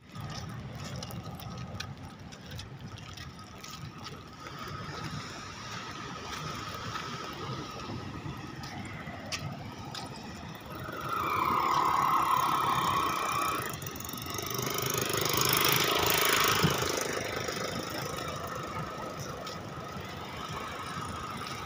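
Surf breaking and washing over a rocky shore, a steady rushing that swells louder near the two-thirds mark. A brief squealing tone is heard about halfway through.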